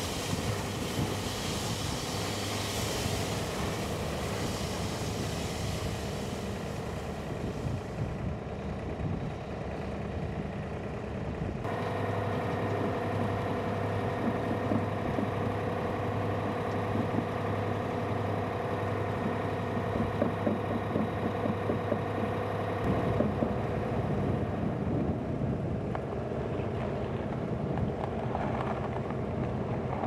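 Heavy site machinery of a directional drilling pull-back running steadily, a continuous engine drone with several steady hums. The sound shifts abruptly about 12 and 23 seconds in.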